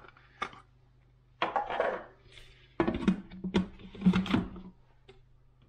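Plastic lid of a Monsieur Cuisine Connect food processor being handled and fitted back onto its stainless-steel mixing bowl: a couple of sharp clicks, a short scrape, then a louder spell of clattering and knocking.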